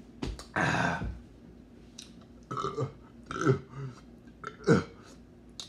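A man gagging and retching with burp-like throat noises at the foul taste of a Bean Boozled jelly bean. There is a long retch near the start, then several shorter gags, one falling in pitch.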